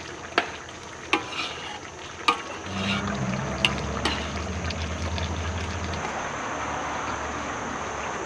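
Cooking at a charcoal-stove kitchen: a few sharp clinks of metal utensils against pots over a steady hiss. A low hum comes in for about three seconds in the middle.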